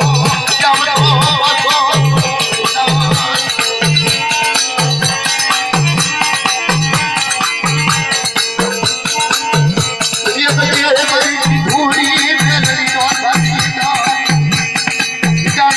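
Music with a steady low beat, about two beats a second, under a wavering melody.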